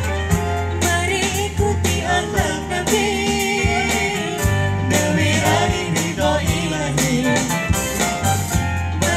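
Live gambus band music played through a stage PA: a woman's voice sings a wavering melody over oud, keyboard and percussion, with a steady bass and regular drum strikes.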